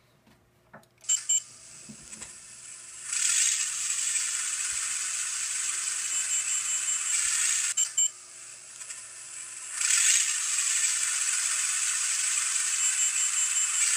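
Digitrax sound decoder in an N gauge Class 52 diesel locomotive model, playing diesel engine sounds through its tiny onboard speaker with the model standing still. The sound is thin and high-pitched, with almost no low end. Two clicks come about a second in, then a steady hissing engine sound that swells a couple of seconds later, dips after two more clicks around eight seconds, and swells again around ten seconds.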